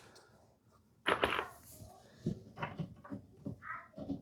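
Light knocks and small handling clatter as screws are set into the wooden assembly, with a brief rasping sound about a second in.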